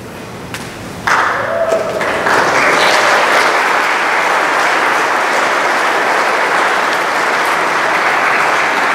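Audience applauding, starting about a second in and swelling into steady clapping.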